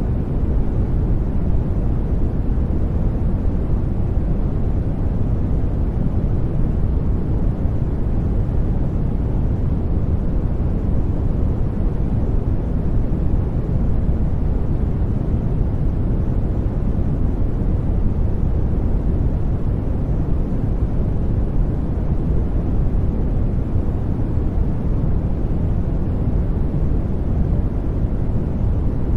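Steady noise from a white-noise track, deep and rumbling, with most of its weight in the bass and little treble, closer to brown noise than to hiss. It holds unchanged throughout.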